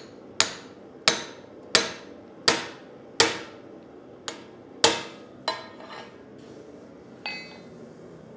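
Hand hammer striking a steel drift set in the eye of a forged axe head held in a vise, opening the eye out. About eight hard metallic blows come roughly one every 0.7 seconds, each ringing briefly, with a lighter, ringing tap near the end.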